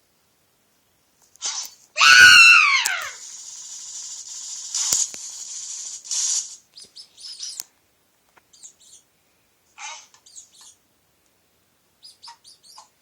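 A string of annoying sound effects: a short burst, then a loud squeal that falls steeply in pitch, a steady hiss for about three seconds, and then a run of short, high chirps.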